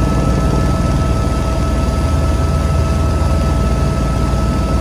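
Helicopter in flight heard from inside the cabin: a loud, steady low drone of engine and rotor with a constant whine on top.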